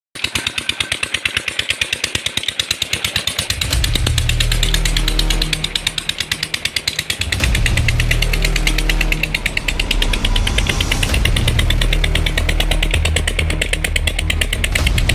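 Stationary diesel engine running a tube-well pump, chugging in a rapid, even beat. A deeper rumble joins about three and a half seconds in.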